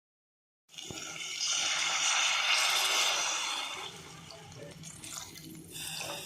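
Water poured into a hot pan of sautéed onion, tomato and carrot, hissing loudly at first and then settling to a softer sizzle, with a few light clinks near the end.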